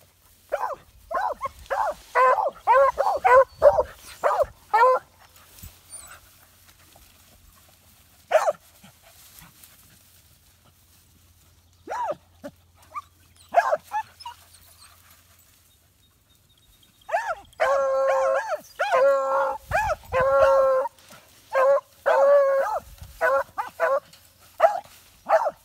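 Hounds giving mouth while trailing a scent: repeated pitched barks come in bursts, with a quick flurry in the first few seconds, a few single barks in the middle, and a longer run of barking in the last third.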